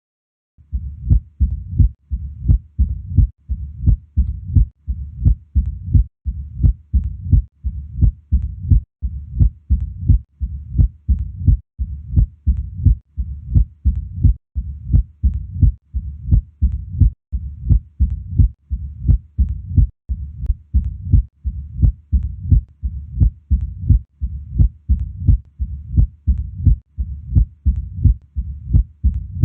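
Recorded heart sounds as heard through a stethoscope: a steady, regular heartbeat, a little over one beat a second, starting about half a second in.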